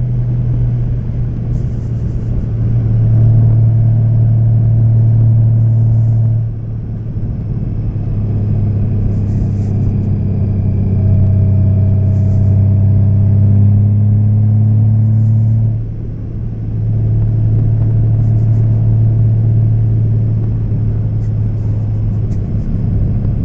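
Honda Valkyrie's 1832cc flat-six engine running steadily under way. The engine note drops off briefly twice, about six and sixteen seconds in, then pulls again.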